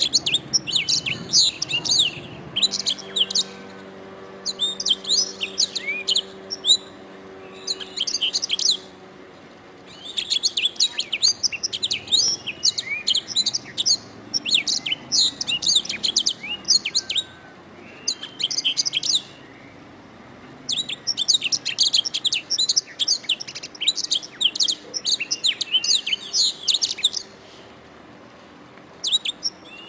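Domestic canary singing: phrases of rapid high trills and chirps lasting from about a second to several seconds, broken by short pauses.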